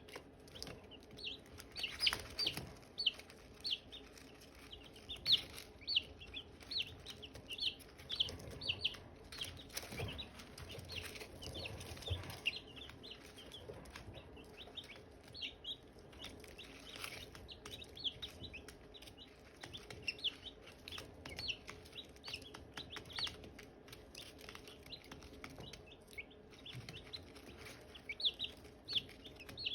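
Silkie chicks peeping: many short, high chirps that drop in pitch, several a second and overlapping.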